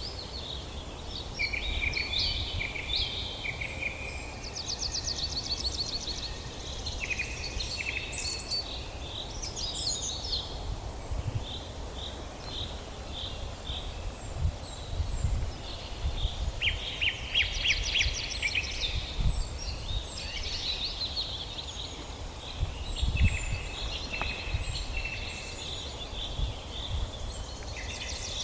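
Several birds chirping and trilling, with overlapping short calls and fast runs of repeated notes, over a low rumble.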